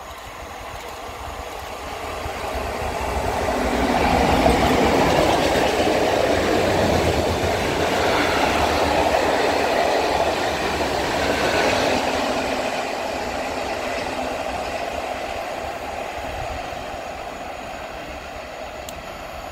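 Freight train of open coal wagons hauled by an ET22 electric locomotive rolling past, its wheels and wagons giving a steady rail rumble. The noise swells over the first few seconds, holds, and then slowly fades.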